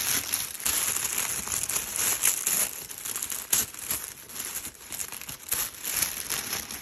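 Packaging wrapper crinkling as it is handled and unwrapped, an irregular run of crackles.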